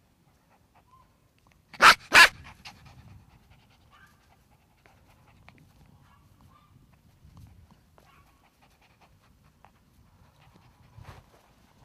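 A puppy panting, with two loud, sharp bursts in quick succession about two seconds in.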